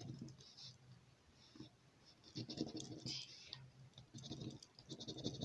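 A coin scratching the coating off a scratchcard in short bursts of quick strokes with brief pauses between, the fastest run near the end.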